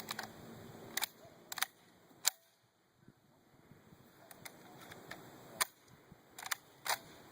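A series of short, sharp clicks and knocks, about seven of them, irregularly spaced, with a near-silent gap about two and a half seconds in.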